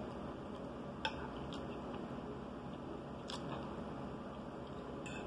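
Faint eating sounds: a metal fork clicking against a plate a few times as food is scooped up, with quiet chewing.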